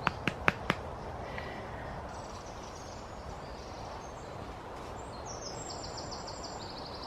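A few sharp clicks in the first second, then steady outdoor background noise, with a bird singing a fast trill of repeated high notes near the end.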